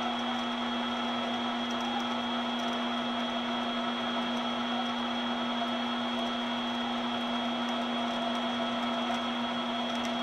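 14x40 metal lathe running steadily with the half nut engaged, carriage feeding along as it takes a light threading pass on a stainless steel shaft: a steady machine hum with a high whine over it.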